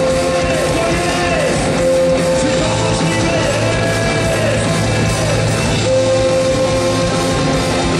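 Live punk rock band playing loudly: electric guitar, bass guitar and drums, with a singer at the microphone. A long held note runs through it, breaking off about halfway and coming back near the end.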